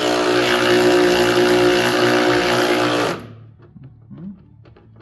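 Cordless power tool motor running steadily as it undoes an anti-roll bar mounting bolt, cutting off suddenly about three seconds in; a few light clicks follow.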